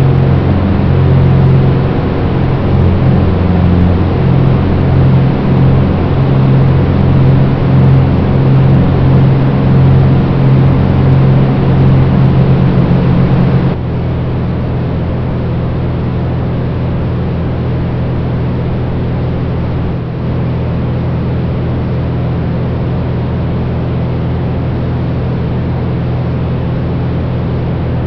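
A Glasair light plane's piston engine and propeller running at high power through takeoff and climb, heard from a camera mounted outside under the wing, with wind rush. About halfway through, the sound drops abruptly to a quieter, steadier drone.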